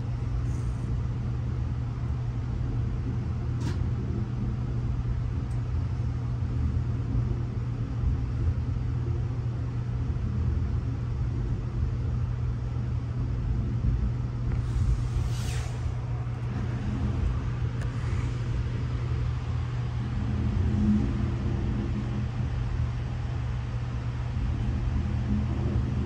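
Steady low rumble heard from inside a passenger sleeping car as a double-stack intermodal freight train rolls past on the next track, with a short hiss about fifteen seconds in.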